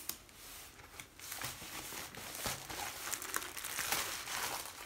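Plastic packaging of a diamond painting kit crinkling and rustling as it is handled and opened, in irregular bursts.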